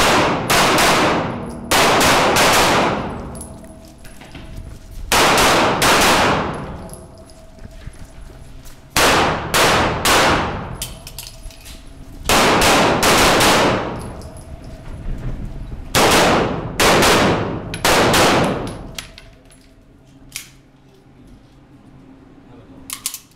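Pistol shots fired in quick pairs and short strings, each ringing with a long echo in an indoor range hall. The shots come in five bursts a few seconds apart, then stop for the last few seconds.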